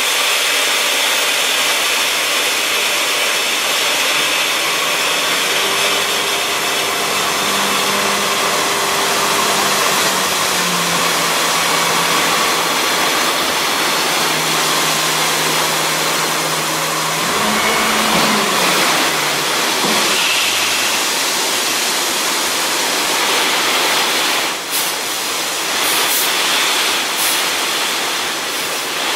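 Dump truck tipping a load of gravel: the gravel pours and slides out of the raised bed with a steady rushing hiss, over the truck's diesel engine running the hoist. The engine tone rises briefly about eighteen seconds in and then drops away, and a few knocks sound near the end.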